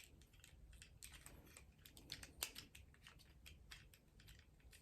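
Faint, irregular clicking and ticking of a Transformers Ratchet action figure's plastic joints and parts being twisted and snapped into place by hand, with a couple of slightly louder clicks about two and a half seconds in.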